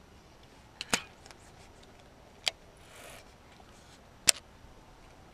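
A few sharp, separate clicks from a baitcasting rod and reel being handled during a retrieve: a double click about a second in, another near two and a half seconds, and the loudest near four seconds, over faint hiss.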